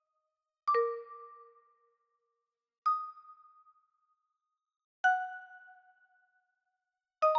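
A chime sound effect dings four times, about two seconds apart, each ding at a different pitch and fading out within about a second.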